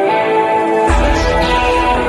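Background music with held guitar notes; a deep bass comes in about a second in.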